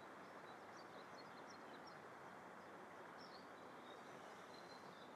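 Near silence: faint outdoor ambience with a few faint, high, scattered bird chirps.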